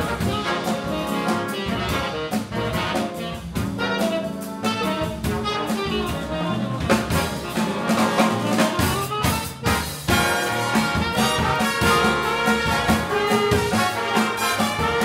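Jazz big band playing live: trumpets, trombones and saxophones over piano, guitar, double bass and drums. There is a brief dip about ten seconds in, then the full band comes back in loud.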